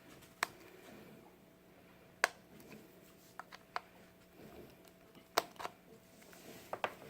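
A few scattered sharp clicks and taps from handling the plastic plug-in chime unit of a wireless doorbell while it is plugged into a wall outlet, the loudest about two seconds in and again about five seconds in.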